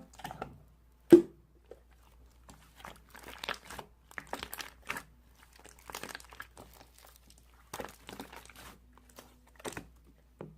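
Slime being squished and poked by hand, giving sticky crackling clicks and small pops, with one loud pop about a second in.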